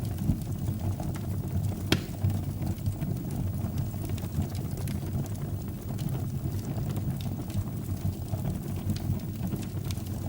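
Wood fire burning in a fireplace: a steady low rush of flames with scattered sharp crackles and pops. The loudest pop comes about two seconds in.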